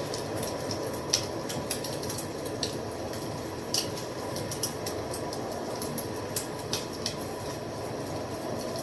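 Wood fire crackling: a steady low rush of burning, with sharp pops and snaps scattered irregularly through it. The loudest pop comes about a second in.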